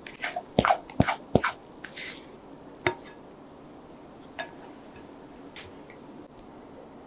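A spatula and glass mixing bowl knocking and clicking as the last of a batter is scraped out: several sharp knocks in the first second and a half, one more about three seconds in, then a few faint taps.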